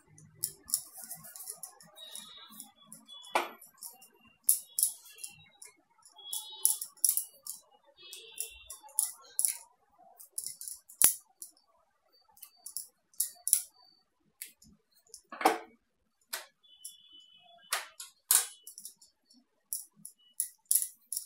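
Wooden rolling pin clicking and knocking irregularly as a puri dough round is rolled out.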